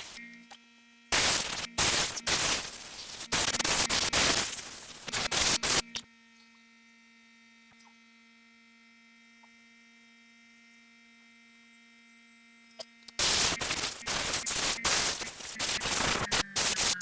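Air blowing debris out of a gas chainsaw in a string of short, loud blasts, in two spells with a quiet pause of about seven seconds between them. A faint steady hum fills the pause.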